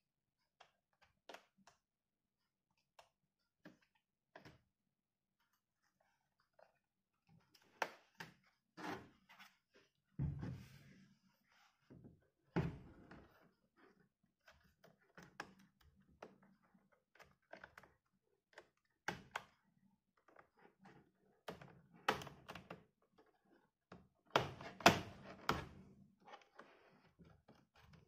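Plastic casing of an ASUS K401LB laptop being handled and pried open by hand: scattered clicks and knocks, sparse at first, then more frequent, with the loudest knocks bunched together near the end.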